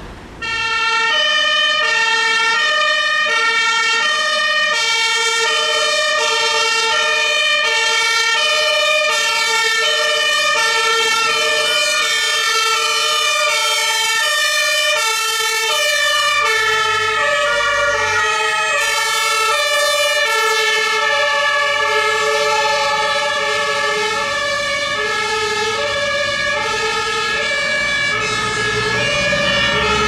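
German fire engine two-tone siren (Martinshorn) sounding loudly, stepping back and forth between two pitches about every two-thirds of a second. It cuts in suddenly about half a second in. From around the middle, a second two-tone horn overlaps, out of step with the first, with low vehicle engine rumble underneath.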